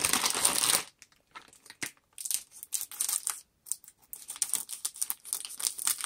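Clear plastic bag around LEGO instruction booklets crinkling as it is cut open with scissors and handled. A loud crackle comes right at the start, then two more stretches of crinkling from about two seconds in.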